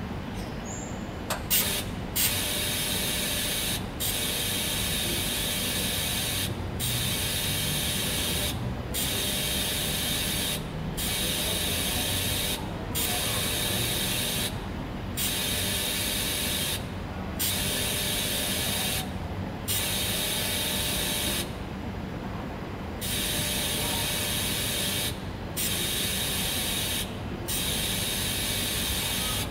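TIG (gas tungsten arc) welding arc on a 316 stainless steel tube, struck with a few sharp crackles about a second and a half in, then a steady hiss that drops out briefly about every two seconds.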